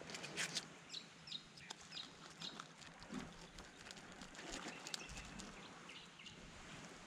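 Faint clicks and scrapes of a filleting knife working through a grunter's flesh and along its bones on a rock. A few short high chirps sound about a second in.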